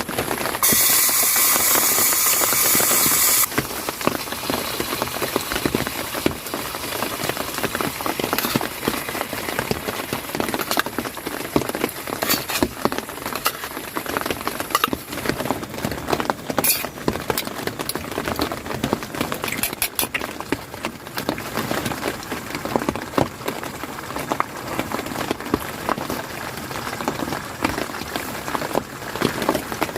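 Rain pattering steadily as a dense, irregular run of small ticks, with a louder burst of steady hiss lasting about three seconds near the start.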